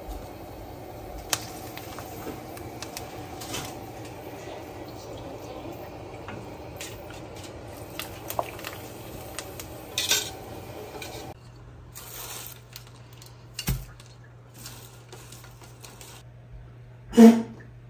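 Kitchen utensils clinking and knocking against pots and dishes, a few scattered clicks over a steady background noise that stops about two-thirds of the way through. A single louder knock comes near the end.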